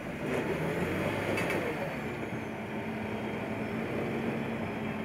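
MAN truck's diesel engine running under load as the tractor unit and tipper trailer drive over loose gravel, with tyre and ground noise; louder for the first couple of seconds, then a steady hum.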